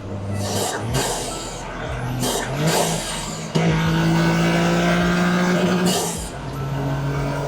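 Toyota GR Corolla's turbocharged 1.6-litre three-cylinder under hard throttle, breathing through an Eventuri carbon-fibre intake, with a high turbo spool whistle and several sharp whooshes of released boost as the throttle lifts. A strong sustained pull starts about halfway through and eases near the end.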